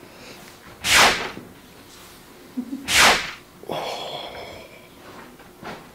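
Two quick whooshing swishes about two seconds apart, each sweeping from high to lower pitch, with faint rustling between them.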